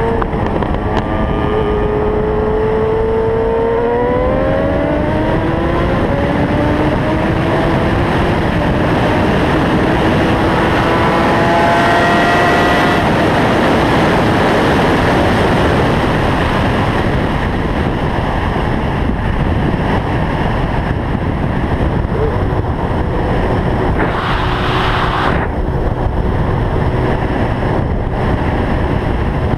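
Inline-four sport motorcycle engine accelerating hard through the gears, its pitch climbing and dropping back at each upshift, under heavy wind rush. After about thirteen seconds the engine fades under the steady roar of wind at high speed.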